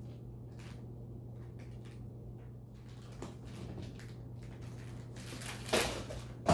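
A monkey handling a container lid: light taps and rustles over a steady low hum, with one louder, brief scrape or clatter near the end.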